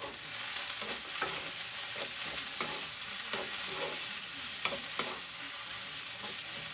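Vegetables sizzling as they stir-fry in a frying pan, with a wooden spatula scraping and knocking against the pan every half second to second as they are stirred.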